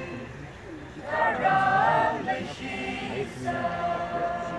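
Group of voices singing together unaccompanied, holding long notes in phrases of about a second, with a short pause near the start and a new phrase about a second in.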